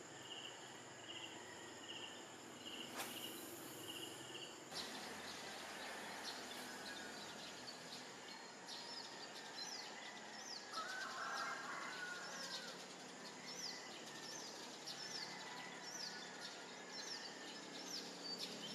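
Crickets chirping in a steady pulse, about two chirps a second, with a short hiss about three seconds in. About five seconds in this gives way to birds calling with quick, repeated, short falling notes over a steady outdoor background.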